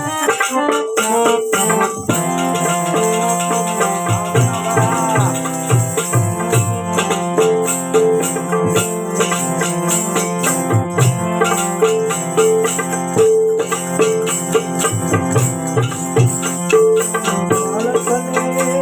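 Instrumental break in a devotional bhajan: a held, sustained melody line over drum strokes and steady shaken or jingling hand percussion.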